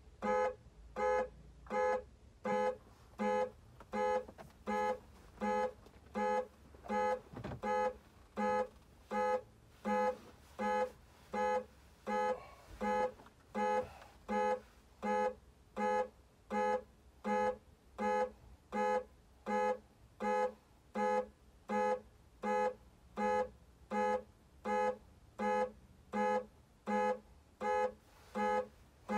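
SUV's car alarm set off with the key fob, sounding the horn in evenly repeated honks, about three every two seconds, heard from inside the car's cabin.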